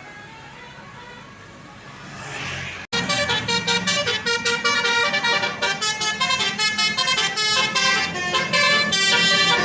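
Road noise of a passing vehicle, then from about three seconds in, suddenly, a bus's telolet multi-tone air horn plays a fast, loud melody of quickly changing notes.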